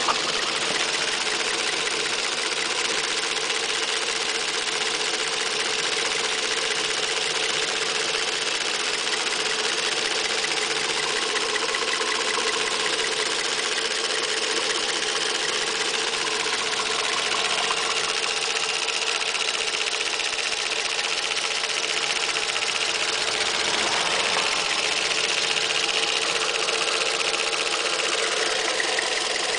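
Toyota 2NZ-FE 1.3-litre VVT-i four-cylinder petrol engine idling steadily, warmed up and heard close from the open engine bay. Its running noise is one that a Toyota mechanic judged normal, not a fault.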